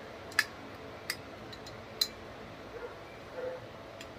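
A spoon clicking and tapping against a small cup as ginger-garlic paste is scraped out of it, a few sharp clinks about a second apart.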